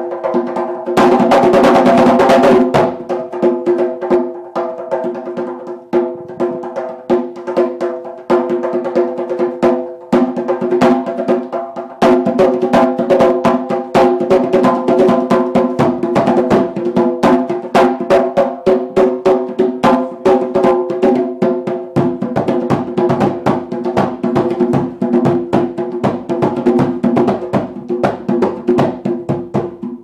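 Djembe played with the hands in a fast, steady stream of strokes, with a loud flurry of strikes about one to three seconds in. A steady ringing tone sits under the beats.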